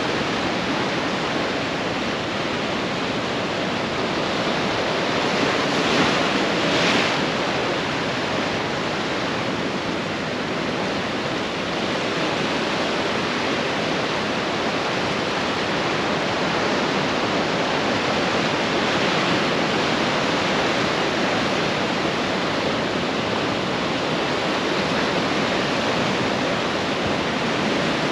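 Ocean surf washing in a steady rush, with one wave breaking louder about six seconds in.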